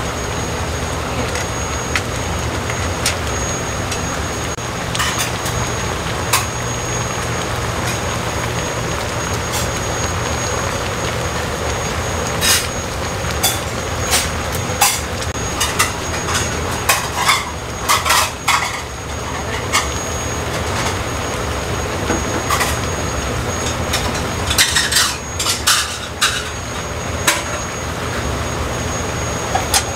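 Steady rushing noise of gas burners under earthenware pots of samgyetang at a full boil, with a low rumble underneath. Scattered clinks and knocks of dishes and pots come through the second half, bunching up twice.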